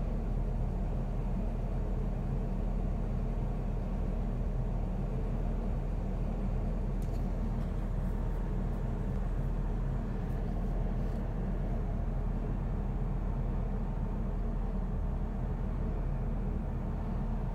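Steady low rumble of a passenger train running along the track, heard from inside the carriage, with a few faint light ticks in the middle.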